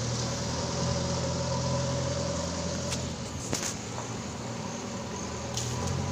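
JCB backhoe loader's diesel engine running steadily, easing off about halfway through, with a couple of short knocks.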